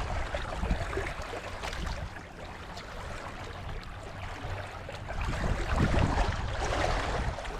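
Wind buffeting the microphone in a rumbling, hissing rush that eases for a couple of seconds in the middle, then gusts up again.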